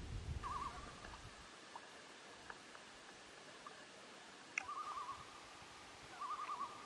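Common loon calling: a rapid wavering tremolo, three times, each about half a second, with a faint drawn-out note held at the same pitch between them.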